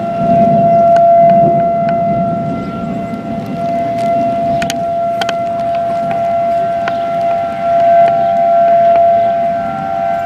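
Outdoor tornado warning siren sounding a long steady tone, its loudness swelling and easing slightly. It is the alarm for a tornado warning during a thunderstorm.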